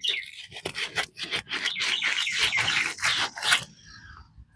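Quick repeated rubbing and scraping strokes, several a second, that stop about three and a half seconds in; a bird chirps faintly near the end.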